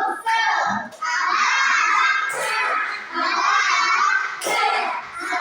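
A classroom of children chanting loudly in chorus, in several short phrases, with a couple of sharp claps among the voices.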